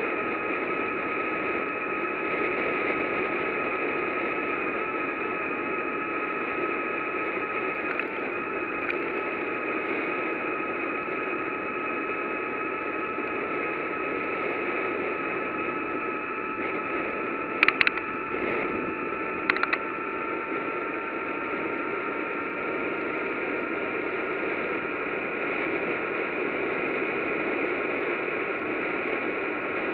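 Steady rushing noise of a bicycle on the move, with a faint whine that slowly drifts in pitch. Two short sharp clicks come about eighteen and twenty seconds in.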